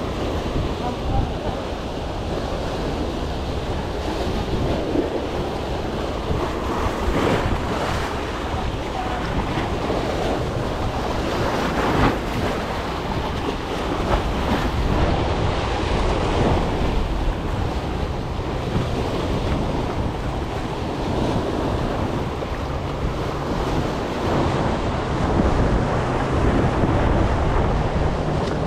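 Surf washing and splashing over shoreline rocks, swelling each time a wave breaks, with wind buffeting the microphone.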